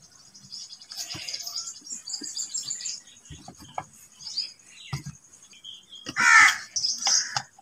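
Birds calling, with high chirps early on and one loud, harsh call about six seconds in; a few light knocks as plastic kitchen appliances are set down on a clay counter.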